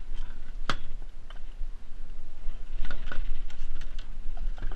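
Sharp clicks and knocks of a fish grip and landing net being handled around a bluefish on a fiberglass boat deck: one loud click a little under a second in, a cluster of knocks around three seconds, another near the end, over a steady low rumble.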